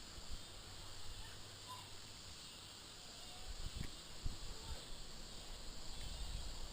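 A steady chorus of crickets with a few faint chirps, overlaid by irregular low bumps and rustles of handling and movement, strongest about four seconds in and near the end.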